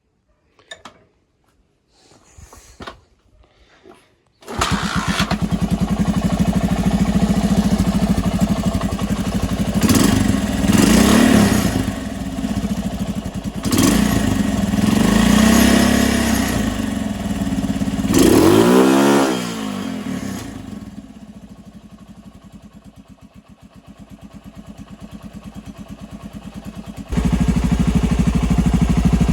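Honda TLR200 single-cylinder four-stroke engine starting suddenly about four and a half seconds in, then revved up and down several times. After about twenty seconds it drops to a quieter low idle, then comes back up abruptly near the end.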